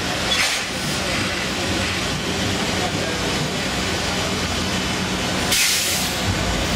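Lampworking glassblower's bench torch burning with a steady hiss, flaring to two brief louder bursts of hiss, one about half a second in and one near the end.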